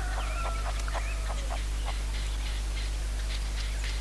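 Red-legged partridges calling: a quick run of short, pitched clucking notes in the first second and a half, then scattered short ticks and clicks. A steady low hum runs underneath.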